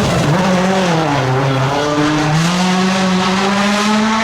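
Rally car engine running hard on a stage: the revs fall over the first second and a half, then pick up again and hold high.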